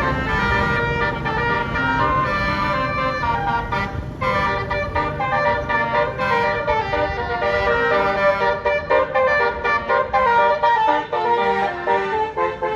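Bus telolet horn, a Basuri multi-tone air horn, playing a quick stepping melody of sustained notes over the rumble of the bus.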